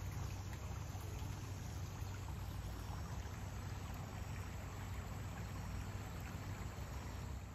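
Steady rushing of muddy floodwater running through channels beside rice paddies, with a low rumble underneath.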